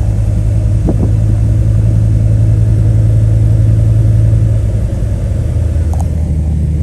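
2000 GMC Sierra 1500 pickup's engine and drivetrain droning steadily while driving, heard inside the cab. The drone eases off and drops a little in pitch about two-thirds of the way through.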